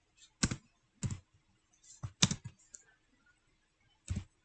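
A few separate keystrokes on a computer keyboard, spaced about a second or more apart, as code is typed into an editor.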